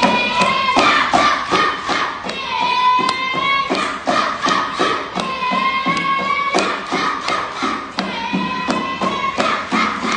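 Rhythmic clapping and slapping from a seated body-percussion dance, about four beats a second, with a chanted song sung in unison over it.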